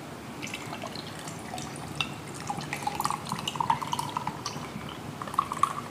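Pineapple juice poured from a can over ice cubes in a tall glass: liquid trickling and splashing, with many small clicks.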